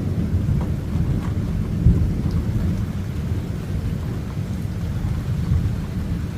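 Thunder rumbling low and slowly easing off, with light rain falling.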